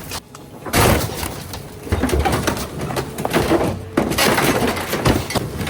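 A scrapped car being broken apart: irregular crunching and cracking of metal and glass, with a few short squeaks.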